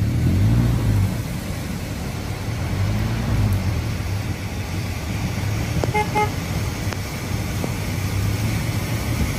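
Low, steady rumble of cars driving through deep floodwater on a road. About six seconds in, a car horn gives a short double toot.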